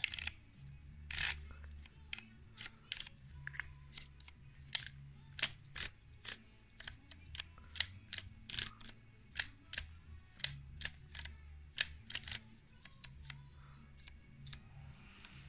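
Vintage Dymo-Mite Tapewriter label embosser at work: a run of sharp, irregular clicks and snaps, about two a second, as its letter dial is turned and its handle squeezed to emboss letters into plastic label tape.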